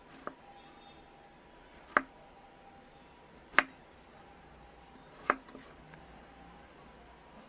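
Kitchen knife slicing a peeled cucumber on a wooden chopping board: a sharp knock of the blade on the board about every one and a half seconds, four in all, the first one faint.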